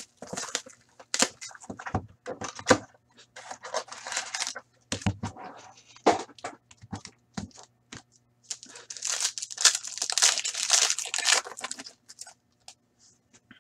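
Plastic wrap and foil hockey card pack wrappers being torn open and crinkled by hand. There are scattered sharp rips and crackles, then a longer stretch of steady crinkling and tearing in the last third.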